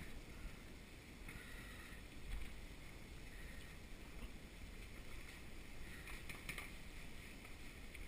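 Faint handling noise of hands and a fillet knife working on a large sheepshead, with a few brief soft scrapes over a low steady background rumble.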